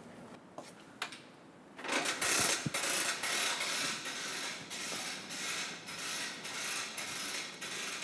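Hose reel paying out an oil dispensing hose, its ratchet clicking rapidly and continuously as the hose is pulled off, starting about two seconds in.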